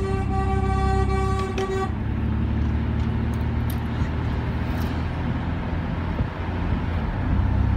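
Vehicle horn sounding one long steady tone that cuts off about two seconds in. After that comes a low rumbling noise with a few sharp crackles.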